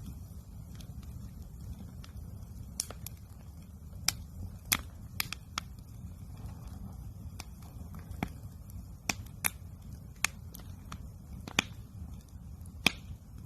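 Wood campfire crackling and popping: irregular sharp snaps, a dozen or so, over a steady low rumble of burning.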